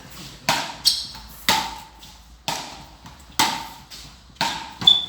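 A road tennis rally: wooden paddles striking the ball back and forth, sharp wooden knocks about once a second, with a couple of strokes coming in quick pairs.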